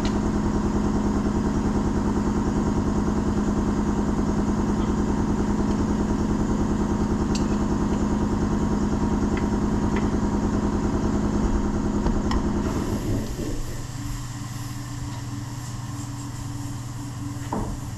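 Die grinder spinning a 3-inch wire wheel against the inside of an aluminum steering knuckle, running steadily; it stops about 12 to 13 seconds in, leaving a quieter steady hum.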